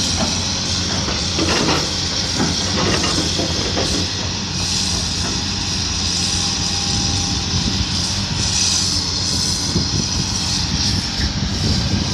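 Diesel engine of a Cat hydraulic excavator running steadily.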